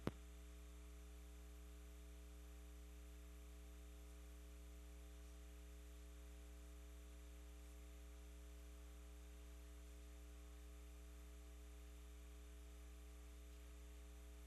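Near silence: a steady low electrical hum with faint hiss on the broadcast audio, after one short click at the very start.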